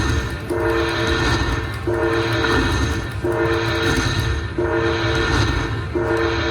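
Slot machine sounds: a loud electronic two-note tone repeats about every second and a third, over a dense casino din.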